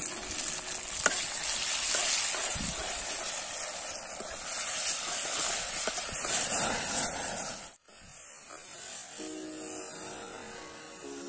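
Chopped tomatoes and onions sizzling in hot oil in an aluminium kadhai over a wood fire, with a steel ladle stirring and scraping against the pan. About eight seconds in the sizzle cuts off abruptly and continues much quieter.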